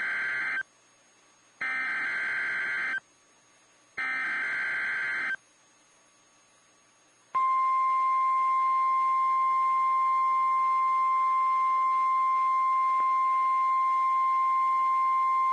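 Emergency Alert System SAME header: three short bursts of screeching data tones, each about a second and a half long, with gaps between them. About seven seconds in, the long, steady single-pitch weather-radio warning alarm tone begins, signalling that a warning follows.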